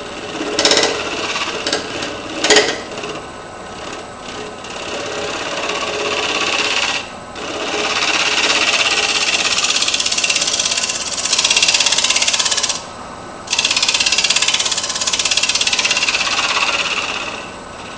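Bowl scraper cutting the inside bottom of a natural edge bowl spinning on a wood lathe, leveling the surface: a steady scraping hiss of shavings coming off. It builds over the first several seconds and breaks off twice briefly. A couple of knocks come in the first few seconds, and a thin high whine runs under it all.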